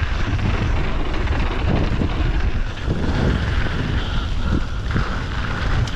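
Wind buffeting the microphone over the steady rolling rush of mountain bike tyres on a packed dirt and gravel trail during a fast downhill descent.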